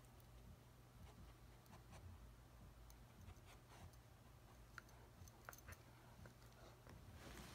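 Near silence: faint scattered clicks and scratches from a husky puppy pawing and mouthing a plush duck toy on carpet, over a low steady hum.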